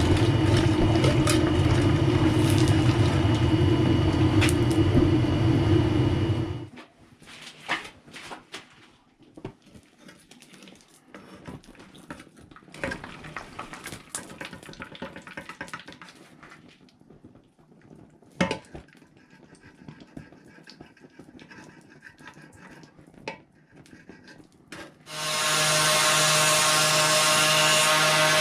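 Workshop machinery in knife-making: a power tool runs steadily and stops about six seconds in. Light taps, knocks and scraping of handwork follow, then a motor starts abruptly near the end and runs with a steady hum.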